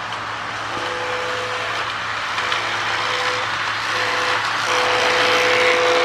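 Lionel MPC-era electronic diesel horn sound board in a Marx E7 B unit blowing a two-note horn four times, long, long, short, long, like a grade-crossing signal. Under it the O-gauge train's rolling rumble on the track grows louder as it approaches.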